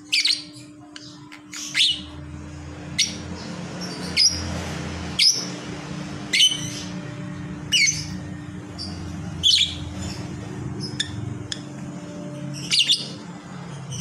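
Lovebird giving short, sharp chirps about once a second while perched asleep with its head tucked into its back feathers, over a steady low hum.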